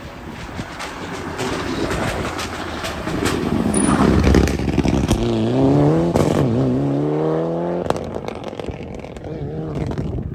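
Mitsubishi Lancer R4 rally car, a turbocharged four-cylinder, passing at speed and loudest about four seconds in. It then accelerates away, its engine climbing in pitch twice as it shifts up, before the note drops off about eight seconds in and fades into the distance.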